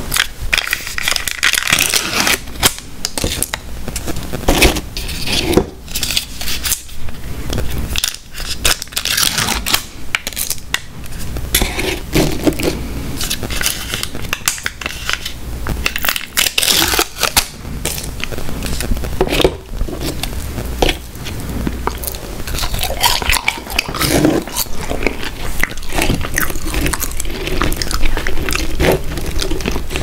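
Peel-off lids being torn back from small plastic dipping-sauce cups, with crinkling, crackling and scraping as the lids and cups are handled.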